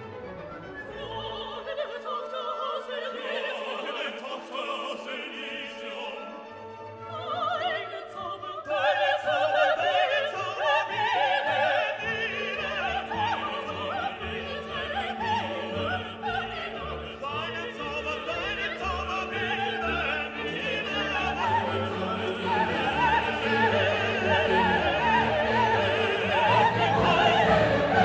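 Orchestral classical music with operatic singing, quieter at first and growing fuller and louder about nine seconds in.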